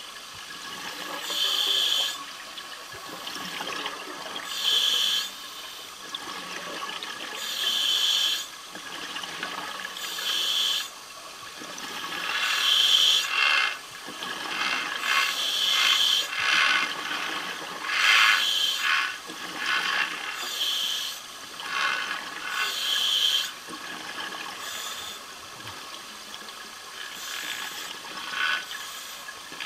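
Underwater: a commercial diver's helmet venting exhaled air as bubbles in a loud burst with each breath, about every three seconds. Between the breaths there are scrapes and knocks of work on the steel pipe flange, busiest in the middle.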